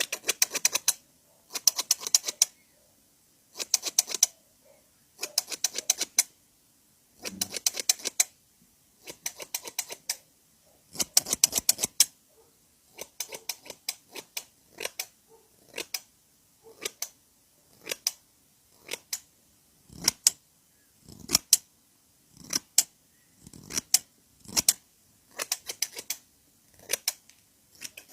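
Barber scissors snipping in quick runs of crisp clicks, each run about a second long and repeating every second or two, with the runs becoming shorter and more scattered past the middle.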